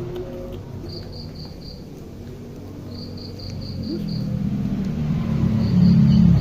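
Cricket chirping in short trills of a few high pulses, repeating every second or two. A low engine hum builds up in the second half and becomes the loudest sound near the end.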